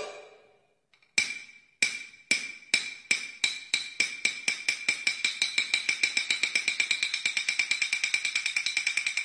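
Peking opera percussion: the ring of a crash fades out, then after a short silence a single high, sharp-sounding percussion beat starts slowly and speeds up steadily into a fast, even roll.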